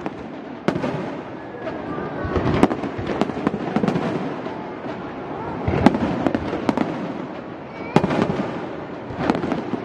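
Aerial fireworks bursting: several sharp booms a few seconds apart, with crackling between them.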